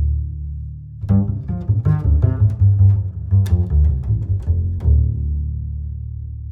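Instrumental music with a deep, sustained bass note. About a second in, a quick run of sharply attacked notes starts and lasts about four seconds, then the music settles on a long low note that slowly fades.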